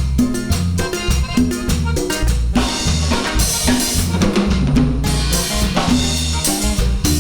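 Instrumental break of a cumbia song with no singing: drum kit keeping a steady beat under bass and chords.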